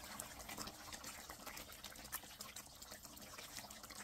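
Faint bubbling and popping of thick chicken tikka masala gravy simmering on medium heat in an open pan, as scattered small pops.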